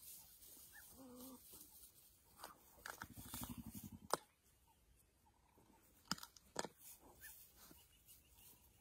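Faint spotted hyena sounds: a short low call about a second in, then a low rattling growl for about a second around three seconds in. A few sharp clicks or snaps follow, the loudest near four seconds and again after six seconds.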